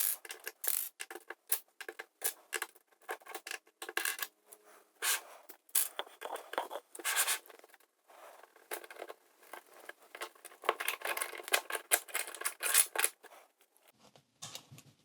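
Plastic LEGO bricks and plates clicking, scraping and rattling as pieces are pried apart and handled: a dense, irregular run of sharp clicks that thins out near the end.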